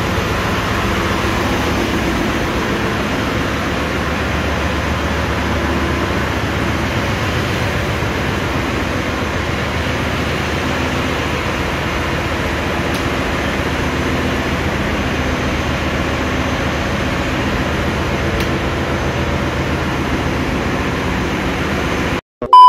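Steady, loud machinery and ventilation noise of a ship's engine room, an even rushing hum with no change, which cuts off suddenly near the end.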